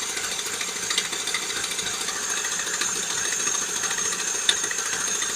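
Friction wheel knocking rapidly and steadily against the pump pulley while the pump runs, over a thin high whine, with a few sharper clicks. The wheel wobbles and shakes, and the knock keeps going for as long as the pump is working.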